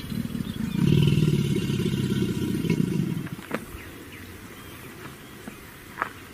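Spinosaurus sound effect: a low, rough growl swells about a second in and lasts about two and a half seconds before dying away. It is followed by a quieter background with a couple of sharp clicks.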